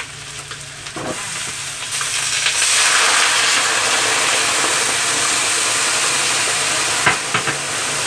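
Boiling water poured into a hot wok over pan-fried threadfin fish: a loud, steady hiss and sizzle builds up about two seconds in and keeps going as the water boils hard. A sharp knock comes about a second in and another near the end.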